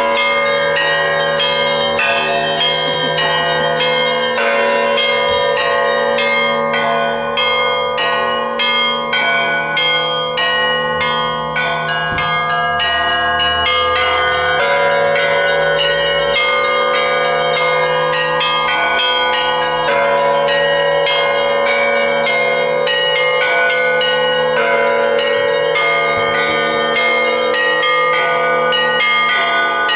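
Russian Orthodox church bells rung together in a continuous peal (kolokolny zvon): rapid strikes on small bells over the long ringing tones of larger ones.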